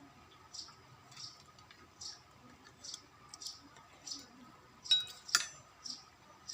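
A person chewing food with the mouth open: wet smacking sounds about every 0.7 seconds. A little after the middle come two sharp, ringing clinks, like a spoon striking a plate.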